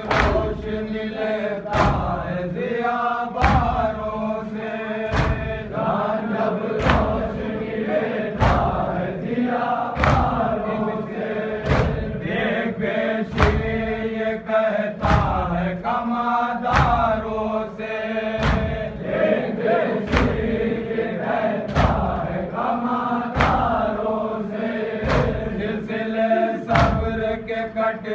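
Voices chanting an Urdu noha, a mourning lament, over a steady beat of thuds a little under a second apart, in the manner of matam (rhythmic chest-beating).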